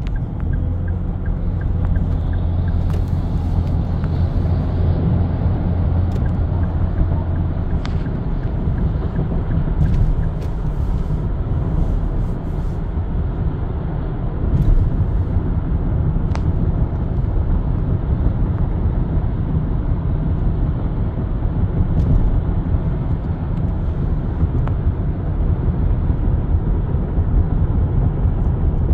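Steady road noise inside a car's cabin at highway speed: a low rumble of tyres and engine, with a stronger low hum for the first several seconds.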